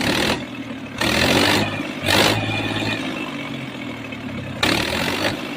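Indo Farm tractor's diesel engine running steadily, with four short, louder rushes of noise over it: one at the start, one about a second in, one about two seconds in, and one near the end.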